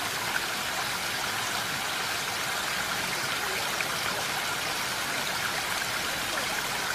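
Steady water noise, a continuous even hiss like rain or running water, with a few faint taps.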